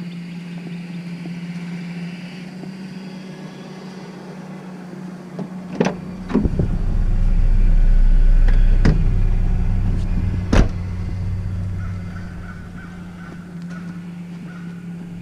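A deep rumble swells and fades over about six seconds, with a few sharp knocks in the middle, over a steady low hum.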